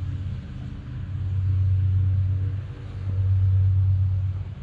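A running motor: a steady low rumble with a faint hum, swelling and dipping every second or two.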